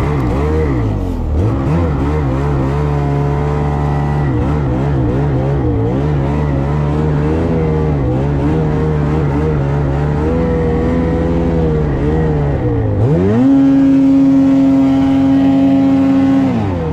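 2022 Lynx Boondocker 4100 snowmobile's two-stroke engine revving up and down with repeated throttle blips while riding through deep powder. About 13 seconds in it climbs sharply to a high steady pitch, the loudest part, held for about three seconds before dropping back.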